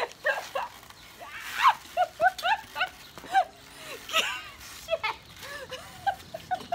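A woman laughing in quick, repeated short bursts, about three a second, breaking into louder, higher peals about a second and a half in and again about four seconds in.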